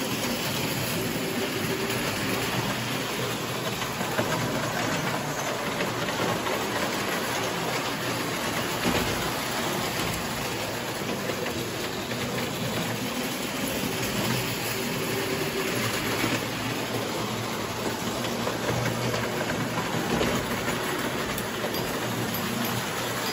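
Toy trains running on a model railroad layout: a steady, continuous rattle of wheels on the track.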